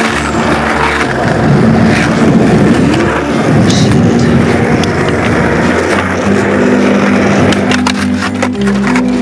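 Skateboard wheels rolling on concrete, with a few sharp board clacks near the end, under background music.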